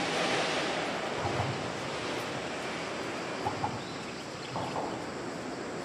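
Steady rushing noise of wind on the microphone mixed with the distant running of an approaching electric freight train. A few short bird calls come through, about a second in and twice more later.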